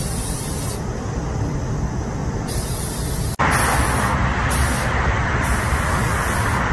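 Aerosol spray-paint can hissing in five short bursts of spraying, over a steady low background rumble that turns abruptly louder at a cut about three and a half seconds in.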